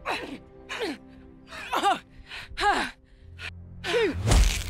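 A person's repeated strained gasps, each a short cry that rises and falls in pitch, over a film score of sustained notes. A low drone comes in past halfway, and a heavy hit lands near the end.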